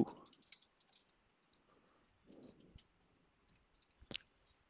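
Faint, scattered computer keyboard keystrokes, with one louder key click about four seconds in.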